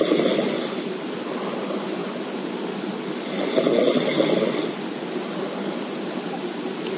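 A person snoring in slow, even breaths: one snore trails off just after the start and another comes about three and a half seconds in. A steady hiss runs underneath.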